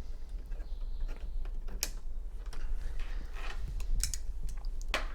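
Irregular small clicks and taps as a replacement internal battery is fitted into its holder inside an opened Macintosh LC 475. The loudest clicks come near the end.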